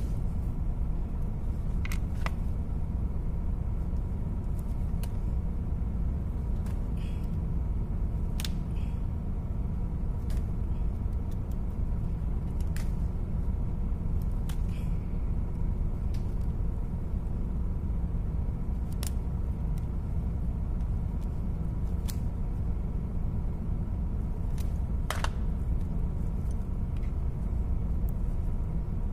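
Steady low rumble of running machinery, with scattered sharp clicks and taps of pliers, wire and a cable lug being worked at a truck battery terminal.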